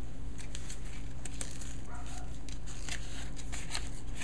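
Light crinkling and rustling of the paper wrapper and cardboard tube of a just-opened can of refrigerated crescent dough being handled and peeled, over a steady low hum.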